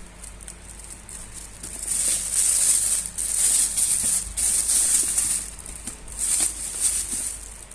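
Packaging rustling and crinkling as it is handled during unboxing, in several bursts of a few seconds' length that start about two seconds in, over a faint steady low hum.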